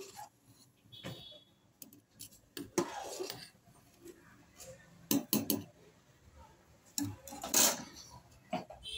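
Steel ladle clinking and scraping against a stainless-steel pot while stirring rice boiling in frothy starch water, in several separate bursts.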